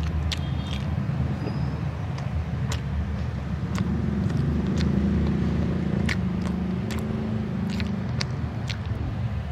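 Steady low rumble of a motor vehicle's engine, with a louder humming engine note from about four to eight and a half seconds in, and short sharp clicks scattered throughout.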